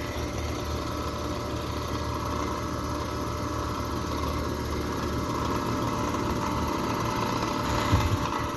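Carrier Sentry heat pump outdoor unit running with a loud, steady mechanical hum and rattle from its LG compressor. The owner takes the compressor to be struggling and failing, possibly from low refrigerant.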